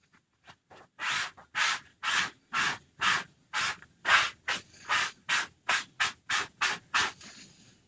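Hand rubbing or scrubbing strokes on a surface, about sixteen back-and-forth scrapes that speed up in the second half, as an item is cleaned for reuse.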